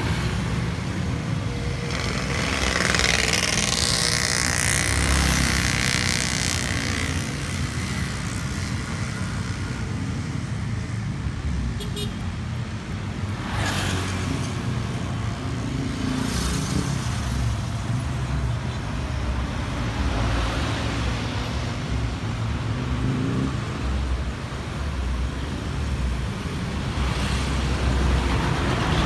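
Road traffic on a city street: a steady engine and tyre rumble with vehicles passing one after another, the loudest passes a few seconds in and near the end.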